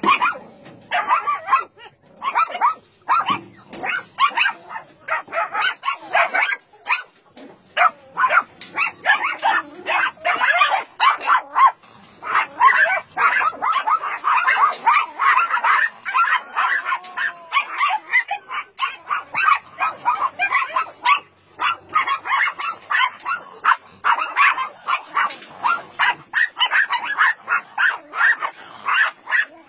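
Many dogs barking and yipping at once, their barks overlapping almost without a break.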